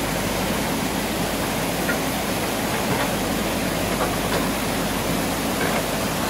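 Mountain stream rushing fast over rocks and boulders: a steady, even whitewater rush.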